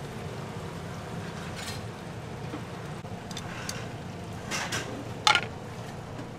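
Metal plate-lifting tongs clicking and clinking against a bowl and the steamer as a bowl is lifted from a bamboo steamer. A few light knocks come first, then a sharp clank about five seconds in, over a steady low rumble.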